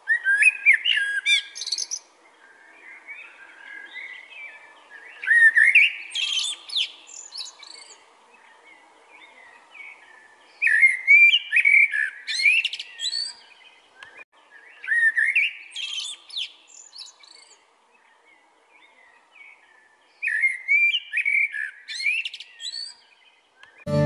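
Male Eurasian blackbird singing: five separate warbled phrases, each with a higher, thinner twitter, separated by pauses of two to four seconds.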